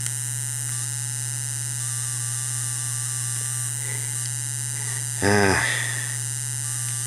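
Steady electronic engine buzz of an emulated Game Boy racing game, played through a Pocket PC's small built-in speaker. A short vocal sound cuts in about five seconds in.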